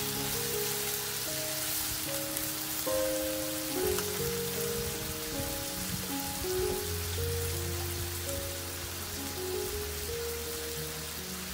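Pork and vegetables sizzling in a frying pan, a steady hiss with fine ticks, under background music playing a simple stepped melody.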